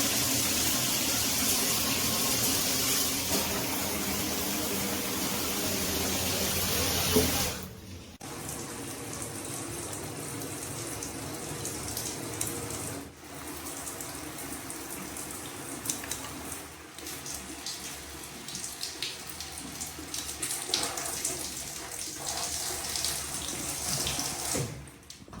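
Shower spray running, a steady rush of water onto a surface. About seven and a half seconds in it drops sharply to a quieter, more uneven spray, with small splashes and clicks.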